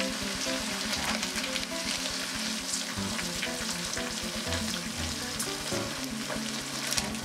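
Food sizzling steadily in a hot pan, with small clicks and scrapes of stirring, over background music.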